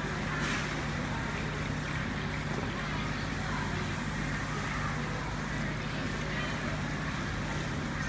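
Steady low mechanical hum over an even background noise, with faint voices in the background.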